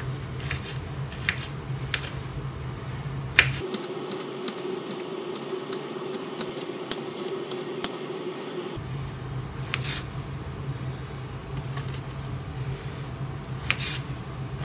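Kitchen knife slicing garlic cloves on a wooden cutting board: short, sharp taps of the blade striking the board, in quick runs, over a steady low hum that drops away for a few seconds mid-way.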